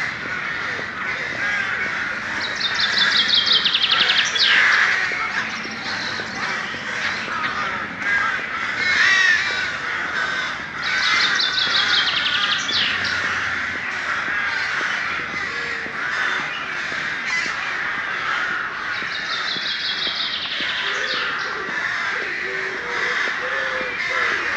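Many birds calling together in a dense, continuous chatter. One songbird's short falling trill is repeated three times, about eight seconds apart.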